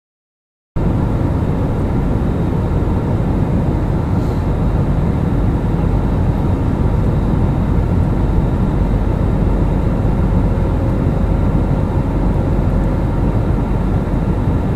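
Jet airliner cabin noise in cruise flight: the steady, low-pitched noise of the engines and airflow heard inside the cabin, starting abruptly about a second in.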